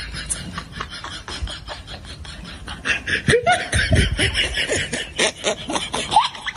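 Laughter in short bursts of chuckling, growing louder about three seconds in.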